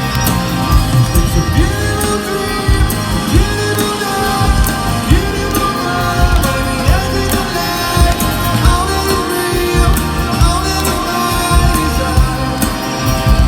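Live rock band playing, with drums keeping a steady beat under guitars and a sung melody.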